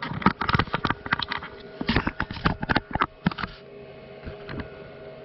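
A quick, irregular run of clicks and knocks, which stops about three and a half seconds in, over the steady hum of a running milling machine.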